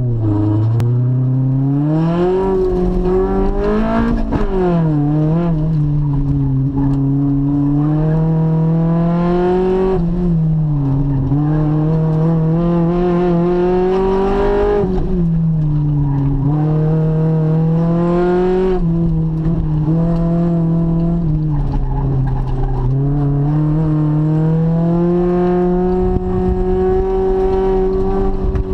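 Car engine heard from inside the cabin during an autocross run, its pitch climbing under acceleration and dropping off again and again as the driver works through the cone course. Near the end it holds a steadier, slowly rising pitch.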